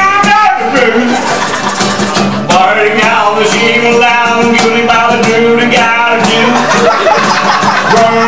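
Live acoustic band playing an upbeat song: accordion over strummed acoustic guitars and a cajon beat, with held notes and steady percussion throughout.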